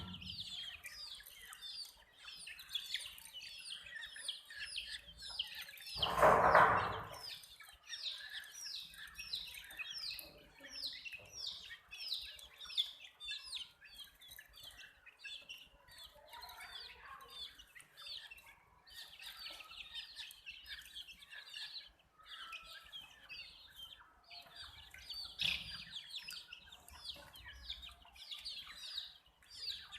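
Domestic chicks chirping: a continuous run of short, high, downward-sliding peeps, several a second, from a group of chicks. About six seconds in, a louder noise of about a second rises over them.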